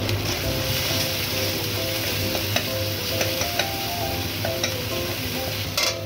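Ginger-garlic paste and spices sizzling in hot oil in a kadai, stirred and scraped with a flat metal spatula that clicks against the pan several times, loudest near the end.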